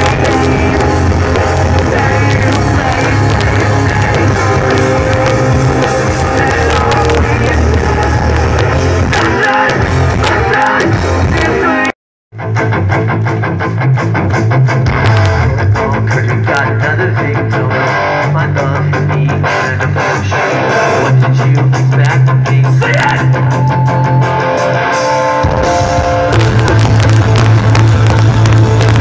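Live rock band playing loud through the festival PA, with electric guitars, bass and drums, heard from the crowd on a phone microphone. The sound cuts out completely for a moment about twelve seconds in, then the band carries on.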